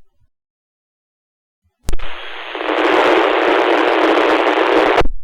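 Fire department two-way radio channel opening with a click about two seconds in, then about three seconds of steady static hiss with no voice, cutting off sharply with another click: a keyed-up radio transmission carrying only noise.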